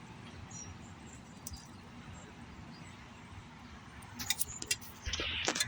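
Quiet outdoor background hiss, then a few sharp clicks and a short rustle near the end. No siren is sounding yet.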